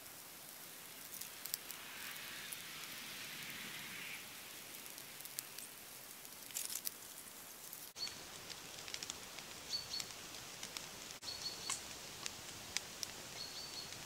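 Small oak kindling fire catching, crackling faintly with scattered sharp pops.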